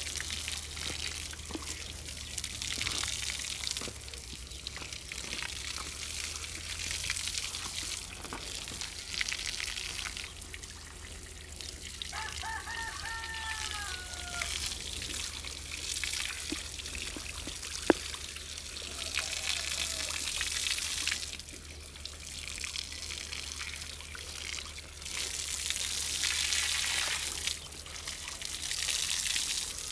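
A jet of water spraying onto a buffalo's back and splashing off its hide onto the ground, a hiss that swells and eases as the stream moves over the animal.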